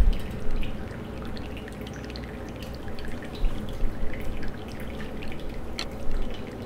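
Thin stream of hot water from a gooseneck kettle poured onto coffee grounds in a glass pour-over dripper, stopping within the first second, then brewed coffee dripping through the paper filter into the cup below in small, irregular drips.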